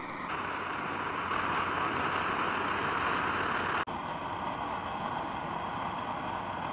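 Coleman 530 pressurized white-gas stove burner running hot under a pot of water, giving a steady hiss. The sound dips briefly just under four seconds in, then carries on.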